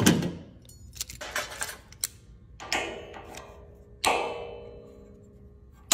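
Self-adjusting locking C-clamp pliers snapping and clicking on steel: a sharp metal snap at the start, a run of light clicks, then a clank about four seconds in and another at the end, with the steel ringing briefly after each.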